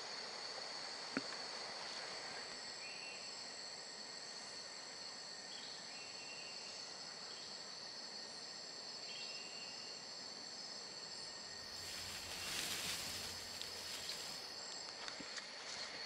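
Rainforest insect chorus: a steady high-pitched drone with a few short chirps over it. There is a single sharp click just after a second in, and about twelve seconds in a louder rush of noise lasts a couple of seconds.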